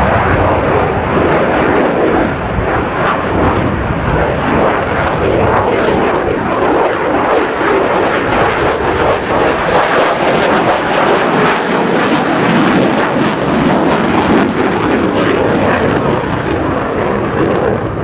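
Lockheed Martin F-35A Lightning II's single Pratt & Whitney F135 jet engine in afterburner during a display manoeuvre: loud, steady jet noise full of crackle.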